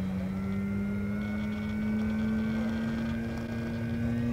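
Electric motor and propeller of an FMS Pitts radio-controlled biplane running steadily in flight, a whine whose pitch rises slowly.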